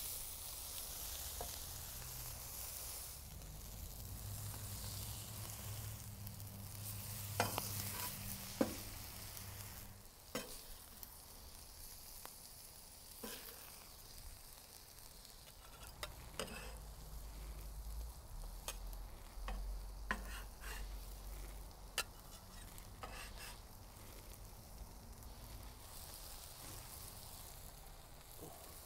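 Diced braised beef with cilantro and shallots sizzling on a hot Cuisinart 360 XL flat-top griddle, the sizzle easing off about a third of the way in. A spatula clicks and scrapes against the griddle surface a dozen or so times.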